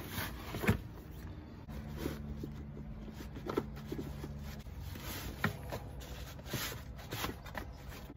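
Rustling and rubbing of a collapsible vinyl dog bath being handled and pushed into place, with a few sharp knocks, the loudest about a second in and again near the middle.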